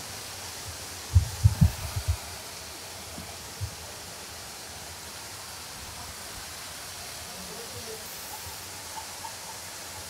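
Steady rushing noise of a nearby waterfall. About a second in, a quick cluster of low thumps on the camera microphone, with one more a couple of seconds later.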